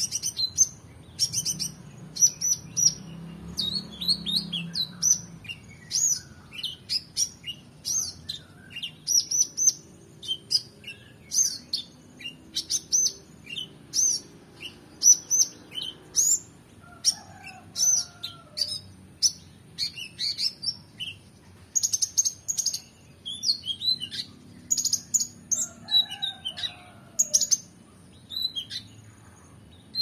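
Male kolibri ninja (Van Hasselt's sunbird) singing without pause in a fast run of short, high chirps and trills, with mimicked phrases of other songbirds worked in.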